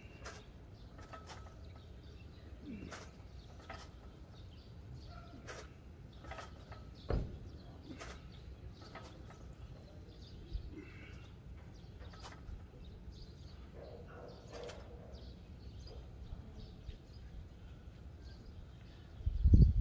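Quiet outdoor background with scattered short bird chirps and clicks, a soft knock about seven seconds in, and a loud low thump right at the end.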